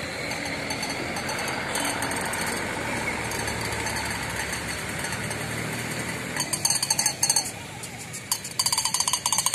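Steady outdoor background noise, then from about six seconds in, rapid runs of sharp metallic clinking or jingling in two bursts.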